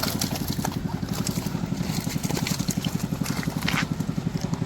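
A small engine idling steadily with a fast, even pulse, with a few faint clicks over it.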